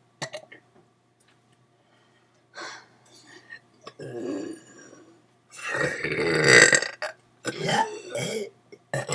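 A person belching on purpose: a few short, faint sounds, then one long, loud belch from about five and a half seconds in lasting over a second, followed by shorter belches near the end.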